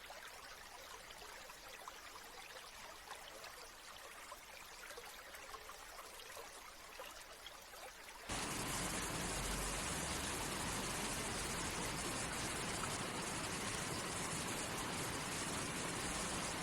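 Water running gently with a soft trickle and small splashes, then about halfway through an abrupt cut to much louder, steady rushing water, like a waterfall or strong stream.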